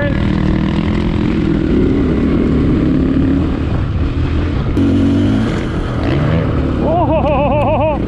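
Husqvarna 501 dual-sport motorcycle's single-cylinder four-stroke engine running steadily under load on a long gravel climb, heard from the rider's own bike.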